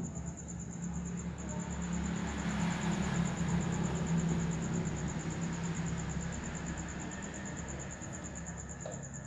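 A steady low hum, loudest through the middle, with a high, rapidly pulsing insect-like trill running over it.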